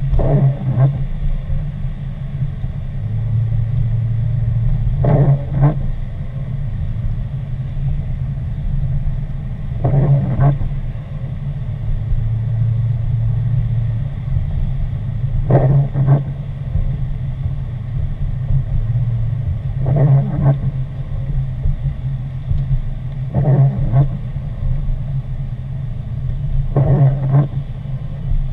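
Car driving on wet pavement, heard from inside the cabin: a steady low rumble of engine and tyres, with the windshield wipers swishing across and back every four or five seconds.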